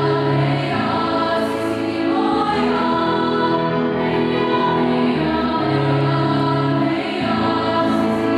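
Mixed high school choir singing a slow piece in long, sustained chords.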